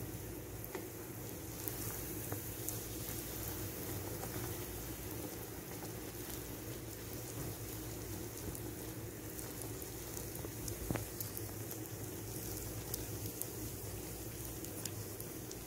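Wheat-flour bhatura deep-frying in hot oil: steady sizzling and bubbling with scattered small crackles, and one sharper click about eleven seconds in.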